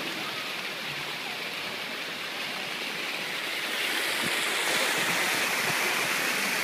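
Steady rush of water running down water slides and splashing into a pool, growing louder and hissier about four seconds in.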